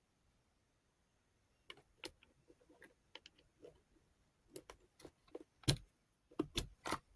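Small hard pieces of a rotary tool accessory set clicking and knocking as they are handled: irregular clicks that start about two seconds in, with the loudest knocks near the end.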